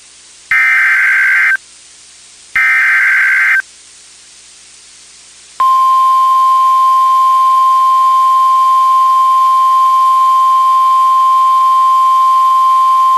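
Emergency Alert System signal: two buzzy digital header data bursts, about a second each and a second apart, then after a short gap a loud, steady single-pitch attention tone begins and holds. It announces a severe thunderstorm warning.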